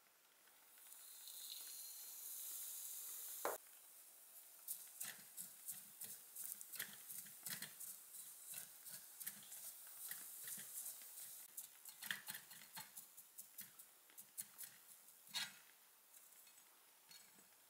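Bread crumbs sizzle as they go into hot oil in a miniature frying pan, a hiss that ends in a click about three and a half seconds in. Then a silicone spatula stirs and scrapes them around the small pan in quick, uneven taps over a faint sizzle while they toast golden. The stirring stops near the end.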